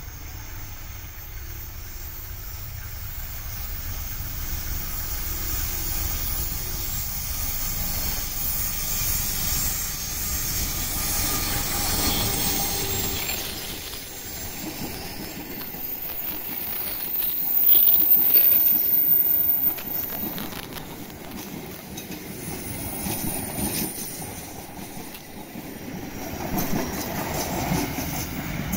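A diesel-electric passenger train, locomotive CC204 with eight coaches, passes close by on a sharp curve. A low engine rumble builds as it approaches, then the coaches' wheels roll past with high flange squeal from the curve, loudest about two-thirds of the way through, followed by uneven wheel noise as the last cars go by.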